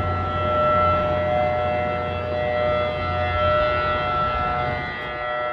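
Outdoor warning siren sounding a steady chord of held tones during its monthly test, swelling and fading in loudness about twice as it rotates. A low hum underneath dies away around the middle.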